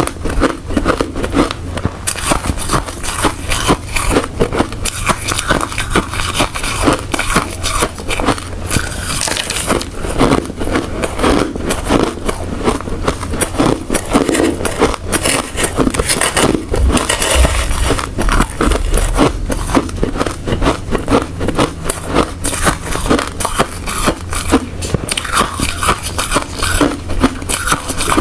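Ice being bitten and chewed close to the microphone: rapid, crunchy cracking that runs on without a break.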